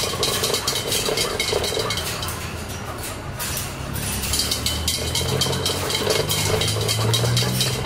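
Metal exercise wheel spinning under a running prairie dog: a rapid metallic clatter over a low hum. It eases off around the middle as the animal stops, then picks up again.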